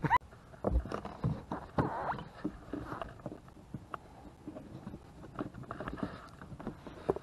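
Irregular knocks, taps and scuffs on a carpeted boat deck as hands press and move on it and fishing gear is handled.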